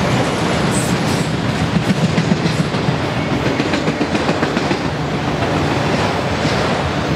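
A freight train of enclosed autorack cars rolling past: a steady rumble of steel wheels on rail, with a run of sharp clicks from the wheels in the middle of the pass.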